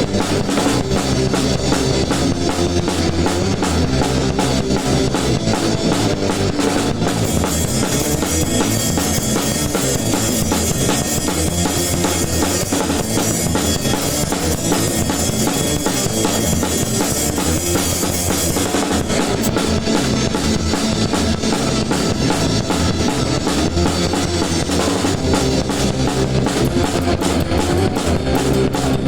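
Band playing ska with a PDP Encore acoustic drum kit driving a steady beat on bass drum, snare and cymbals, electric guitar underneath. The cymbals wash louder for about twelve seconds in the middle.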